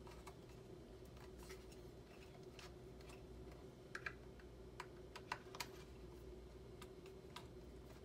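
Faint, scattered small clicks of a T6 Torx security screwdriver working screws loose inside a Mac mini's metal case, with a few sharper ticks about four to five and a half seconds in, over a faint steady hum.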